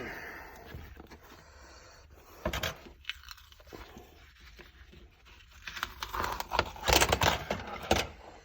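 A Microsoft Surface Pro 4 keyboard cover being pried and pulled apart by hand: quiet handling noise broken by a sharp crack about two and a half seconds in, then a dense run of cracks and snaps near the end.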